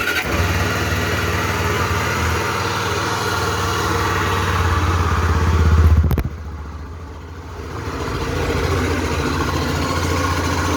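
Honda XRE 300 / CB 300 single-cylinder engine starting and running, growing louder until it drops abruptly about six seconds in, then building up again. The engine has a damaged left-side (magneto-side) crankshaft bearing, the cause of the noise being shown.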